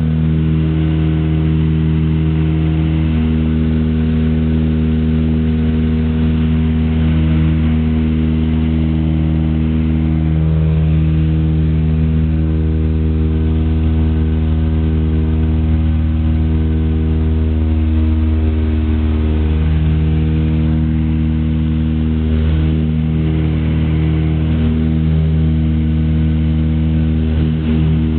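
Twin piston engines and two-blade propellers of a Britten-Norman Islander droning steadily, heard inside the small cabin, with slight shifts in pitch after about 18 seconds and again near the end.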